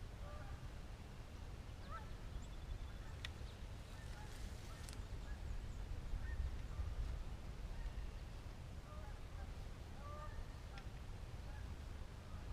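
Geese honking faintly: scattered short, repeated calls over a steady low rumble of wind.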